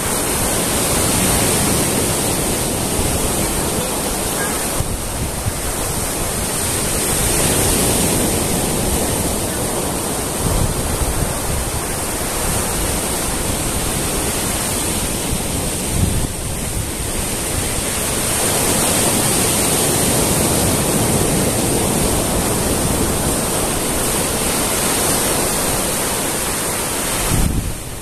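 Small surf breaking and washing over a sandy, rocky beach: a continuous rush of waves that slowly swells and eases, with wind rumbling on the microphone.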